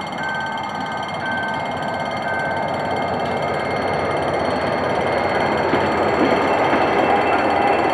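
GM GT22CW-2 diesel-electric locomotive passing at close range with its train, its engine and wheel noise building steadily louder. Over the first few seconds the level-crossing warning signal sounds three high beeps, about one a second.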